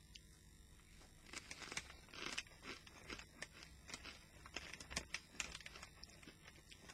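Pork scratchings being chewed: quiet, irregular crisp crunches, several a second, starting about a second in.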